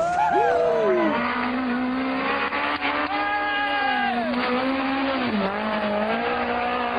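Rally car engine revving hard, its pitch climbing and falling as the driver accelerates, shifts and lifts off, with a sharp drop and pick-up about five seconds in.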